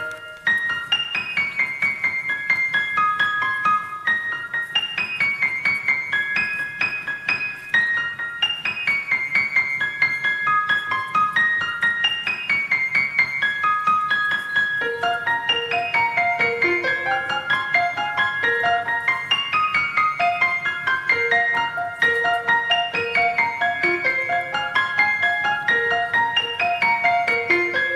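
Background piano music, a steady stream of quick notes; a lower part joins about halfway through.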